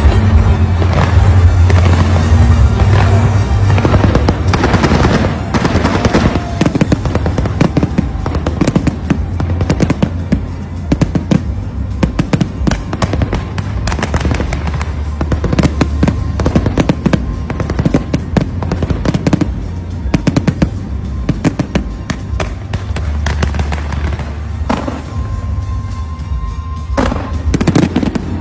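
Fireworks bursting and crackling in rapid, dense volleys, over music with a steady heavy bass.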